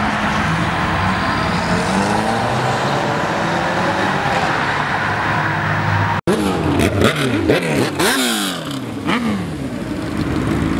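Car engines running as cars pull away, one rising slowly in pitch as it accelerates. After a sudden break about six seconds in, engines, among them sport motorcycles, are revved repeatedly in quick rises and falls.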